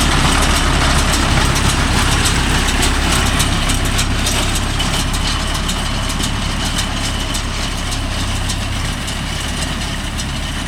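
Tractor's diesel engine running steadily while driving a baler that is picking up the crop.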